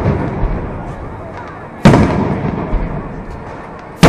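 Aerial firework shells bursting: two sharp bangs about two seconds apart, one near the middle and one near the end, each followed by a rumbling echo that dies away.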